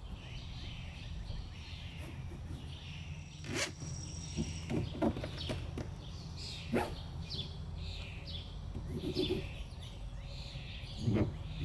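Wind rumbling on the microphone, with birds chirping over and over in the background. A few sharp knocks come through, about three and a half seconds in, about seven seconds in and near the end.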